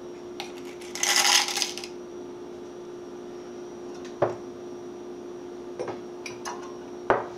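Plastic measuring spoon scooping sugar from a ceramic sugar bowl and tipping it into a glass measuring jug: a short scraping rustle about a second in, then a few light clinks of the spoon against the dishes, over a steady faint hum.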